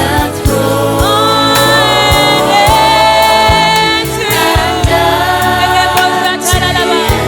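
Gospel worship music: a group of voices singing long held notes over a band with bass and regular drum hits.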